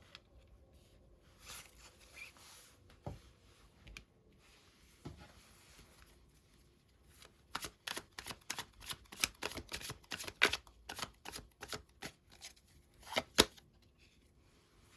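Tarot cards being handled and shuffled: soft sliding and rustling at first, then a quick run of crisp card snaps and taps lasting about six seconds, the loudest one near the end.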